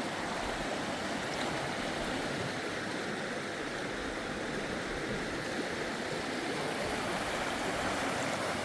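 Steady running water of a stream.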